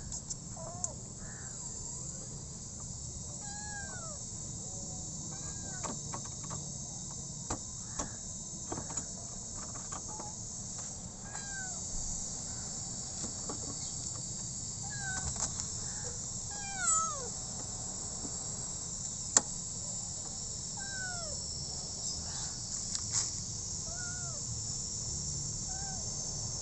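A cat shut in a plastic pet carrier meowing over and over, short high cries every second or two, over a steady high chirring of insects, with a few sharp clicks.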